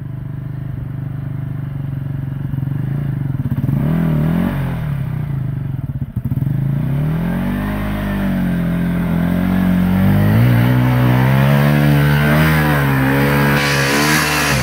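KTM enduro motorcycle engine revving under load on a muddy uphill, its pitch rising and falling several times as the throttle is worked. The revs climb highest and hold through the second half, then drop away near the end.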